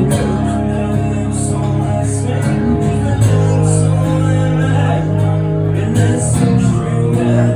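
Live band music: guitar chords with a regular beat, the chord changing about three seconds in.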